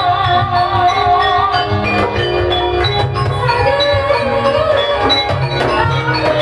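Javanese gamelan ensemble playing, with metallophones ringing over a steady low register and a wavering melody line above.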